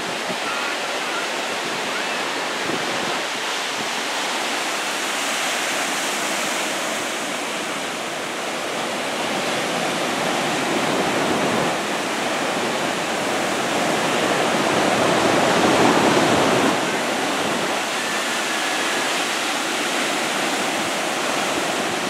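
Surf from a waist-high typhoon swell breaking and washing onto the beach: a steady wash of noise that swells louder for a few seconds about two-thirds of the way through.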